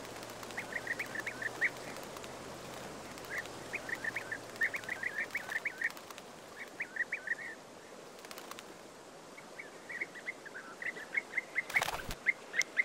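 European bee-eaters calling: bouts of quick, short notes repeated in rapid series, with pauses between the bouts. A single short knock near the end.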